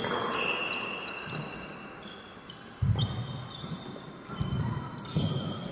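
Badminton rally on an indoor court: court shoes squeaking on the mat as players move, with low thuds of footfalls and a few sharp hits.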